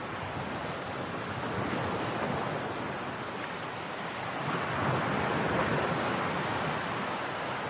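A steady rushing noise with no voices, swelling a little around the middle.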